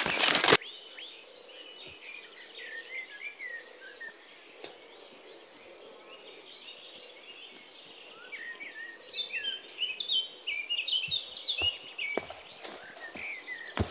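Forest birds chirping in quick, varied calls over a steady high insect drone, the calls busiest in the second half. A loud rustle opens it in the first half-second, and a few faint footsteps on leaf litter come near the end.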